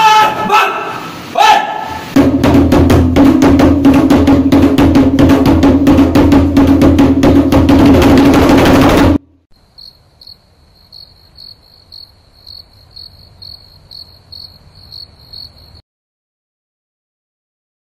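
A voice calls out briefly, then a fast, loud jam on strummed acoustic guitar and hand drum cuts off suddenly about nine seconds in. A cricket then chirps steadily at about two chirps a second for some six seconds.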